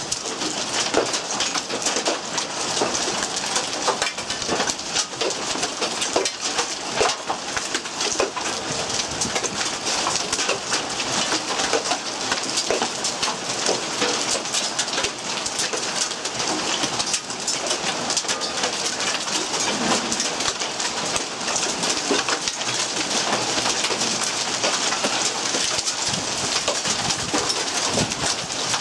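Hail and heavy rain pelting down: a dense, steady hiss of rain with many sharp ticks of hailstones striking surfaces.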